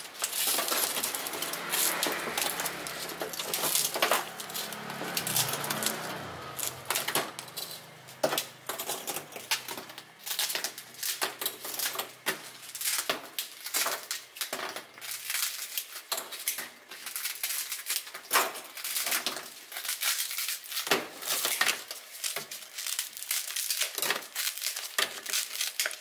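Scissors snipping through long ribbed sticks of hard pulled-sugar candy, giving a fast, irregular series of crisp snaps and crunches as the sticks are cut into short pieces on a metal tray.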